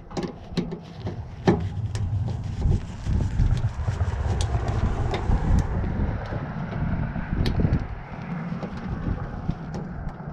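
Wind buffeting the microphone as a fluctuating low rumble, with scattered small clicks and taps from handling.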